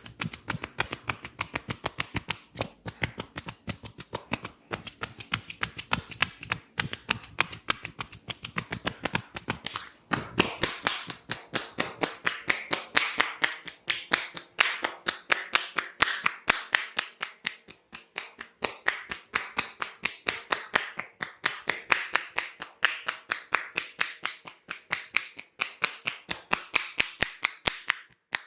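Rapid, rhythmic percussive hand strikes of an Indian head massage: a steady run of sharp taps and slaps, several a second, growing fuller and brighter from about ten seconds in.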